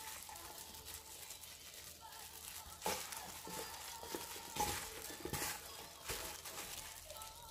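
Plastic-gloved hands tossing steamed chili peppers in frying flour in a stainless steel bowl: soft rustling of the glove and coated peppers, with several sharper scrapes and knocks against the bowl, the loudest about three, four and a half and five and a half seconds in.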